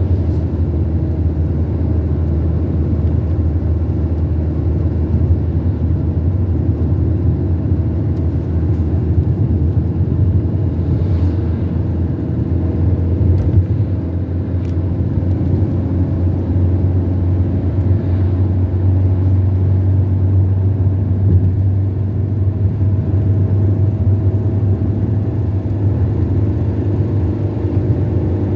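Car driving along a road: a steady low drone of engine and road noise.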